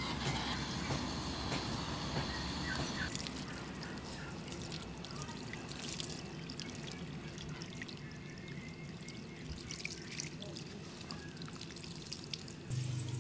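Water from a garden hose running and splashing onto a skinned cow head as it is rinsed clean.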